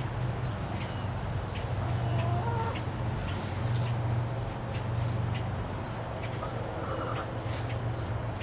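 Chickens clucking now and then over a steady low hum.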